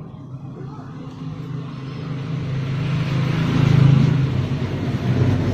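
A motor vehicle's engine running, its sound swelling steadily to a peak about four seconds in, then easing slightly.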